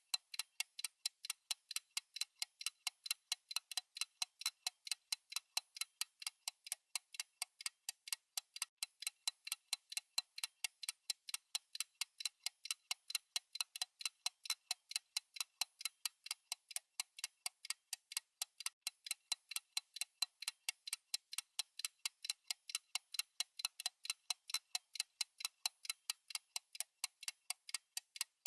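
Fast clock tick-tock from a countdown timer: sharp, even ticks at about four a second, alternating slightly louder and softer.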